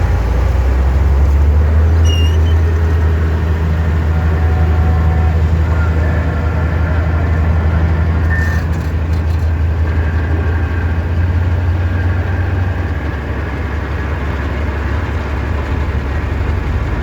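Heavy diesel truck engine running with a steady low drone, easing off a little near the end.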